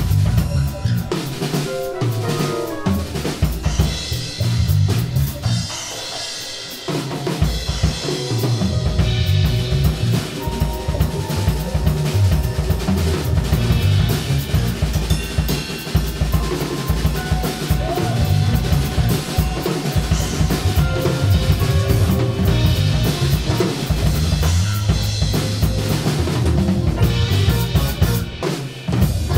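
Live band playing an instrumental piece, the drum kit most prominent with bass drum and snare hits, over electric bass notes and keyboards. The music thins out briefly about six seconds in, then carries on.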